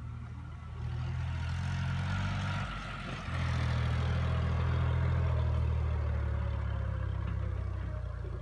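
Heavy diesel engine running, from a JCB 3DX backhoe loader working beside a Swaraj 744 FE tractor as it loads soil into the trolley. The engine grows louder about a second in, dips briefly near three seconds, then runs at its loudest.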